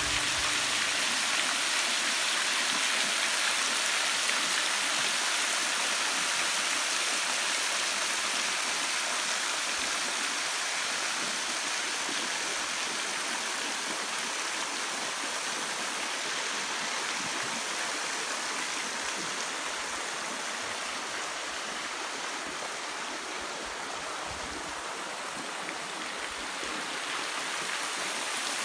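Steady rush of water, streaming and dripping off a rock ledge into the river, and moving river water. It eases a little after the middle and rises again near the end.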